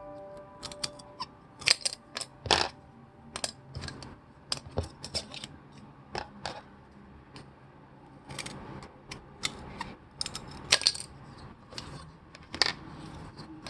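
Irregular sharp clicks and taps of small hard pieces being handled and set down on a work surface, some in quick pairs.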